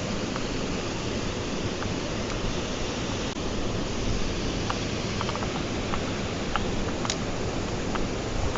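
Mountain stream water rushing steadily, with a few short, faint clicks scattered through it.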